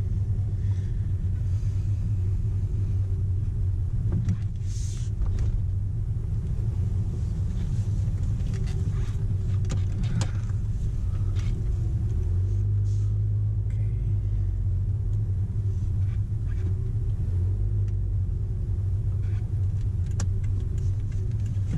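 A car driving, heard from inside the cabin: a steady low engine and road rumble, with a few faint clicks and rattles.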